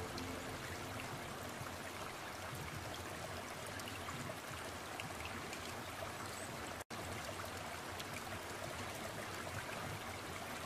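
Steady trickle of running water, cut off for an instant by a short gap of silence a little past the middle.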